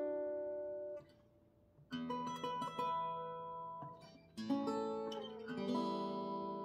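Gretsch Showdown acoustic guitar played with a pick, single notes and chords ringing out. The first notes die away about a second in, leaving a second of near silence, then a phrase of picked notes starts, fades briefly, and gives way to chords that ring near the end.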